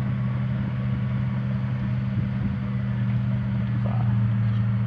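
An engine running steadily at an even pitch with a low rumble underneath.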